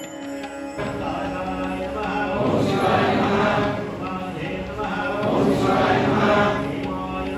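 Male voices chanting Sanskrit mantras together in a steady, rhythmic recitation, as at a temple puja. A temple bell's ringing dies away in the first second before the chant comes in.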